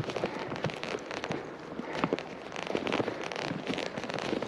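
Footsteps and husky paws crunching through fresh snow: a dense, irregular crackling.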